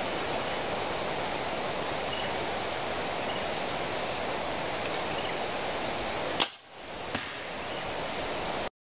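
A compound bow shot: a single sharp snap of the release about six seconds in, followed about a second later by a fainter knock of the arrow striking the target downrange, over a steady outdoor hiss.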